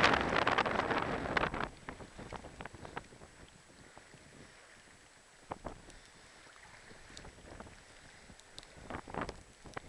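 Gusting wind buffeting the microphone, easing off after about a second and a half, then choppy wind-driven water lapping and splashing against a float tube, with a few louder splashes about halfway and near the end.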